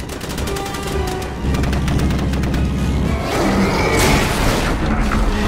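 Film battle sound: a biplane's twin machine guns firing a rapid burst over an orchestral score, then a loud crash of splintering wood and metal about four seconds in as a biplane is struck.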